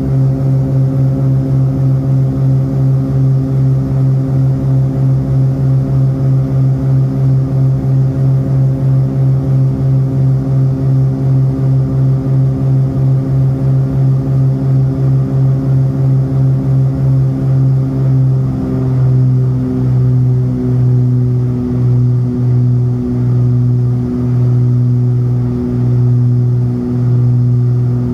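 Cessna 402C's twin turbocharged six-cylinder piston engines and propellers droning steadily, heard inside the cabin. The drone throbs about three times a second, the beat of two propellers turning at slightly different speeds, and about two-thirds of the way through the throb slows to a slow wah-wah about once a second as the engine speeds come closer together.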